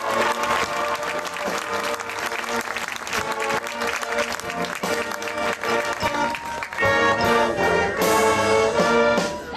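High school marching band playing: brass chords over drum strokes, building to loud held brass chords in the last few seconds before the music breaks off at the end, with crowd applause mixed in.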